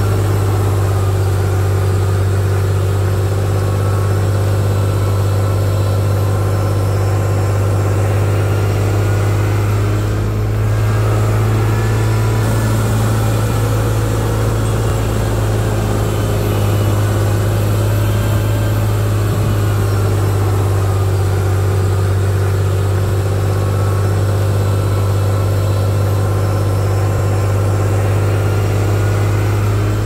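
Heavy diesel engine of an earthmoving machine running steadily at a constant low pitch, with small rises and falls in engine note.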